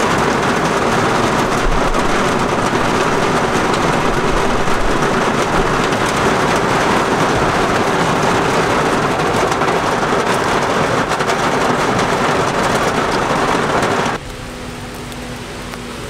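Heavy rain pouring down in a dense, steady hiss. About fourteen seconds in it cuts abruptly to a much quieter rain with a faint steady hum underneath.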